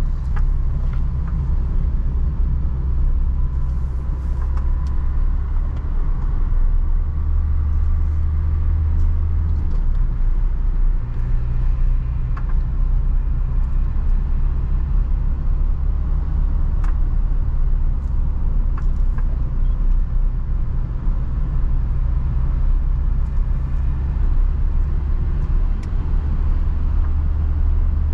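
A Renault Trafic van driving, heard from inside the cabin: a steady low engine and road rumble. Its pitch steps about ten seconds in and again near the end. A few light ticks sound now and then.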